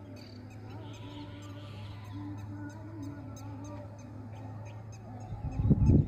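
Birds calling, in faint wavering calls, over a steady low hum. Loud low thumps on the microphone in the last second.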